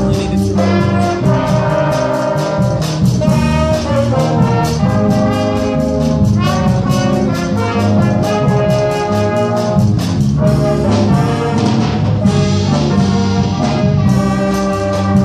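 Trumpet playing a solo melody over a school band's brass accompaniment with a steady beat.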